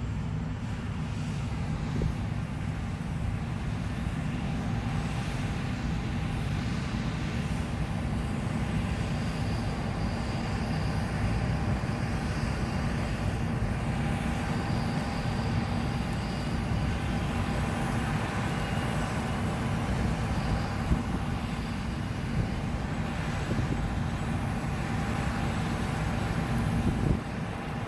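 John Deere S780 combine harvester running steadily while harvesting wheat: a continuous low machine drone with a faint steady whine above it.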